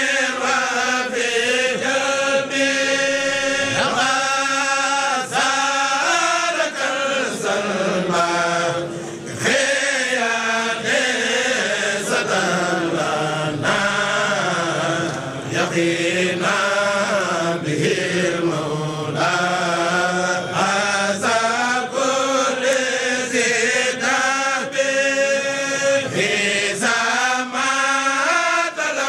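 Voices chanting an Arabic devotional poem, a Mouride khassida, in a melodic repeating line, over a regular beat of sharp taps.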